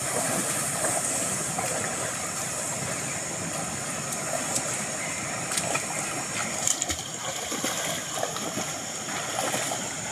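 Shallow muddy stream running steadily, with a few short splashes from someone wading through the water.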